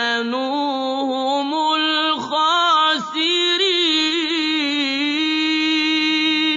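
Unaccompanied solo voice singing or chanting long, held, ornamented notes that waver in pitch, with brief breaks about two and three seconds in. It stops abruptly near the end.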